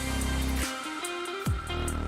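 Background music with a heavy electronic beat: deep sliding bass drops, sharp drum hits and a guitar line, repeating about every second and a half.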